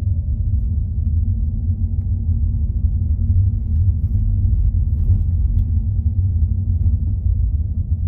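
Steady low rumble of a car driving along a road, engine and tyre noise, with a faint whine rising slowly in pitch.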